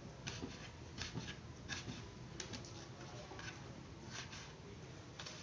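Kitchen knife slicing small tomatoes on a plastic cutting board: light, irregular taps of the blade on the board, about one or two a second.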